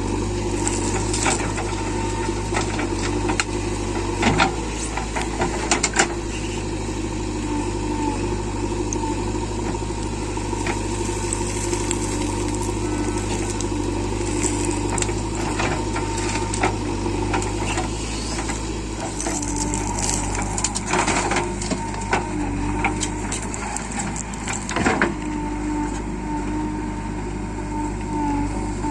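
JCB 3DX backhoe loader's diesel engine running and working, its pitch shifting a little with the load. Several sharp knocks and crunches come from the bucket as it scoops sand and loads it into a tractor trolley.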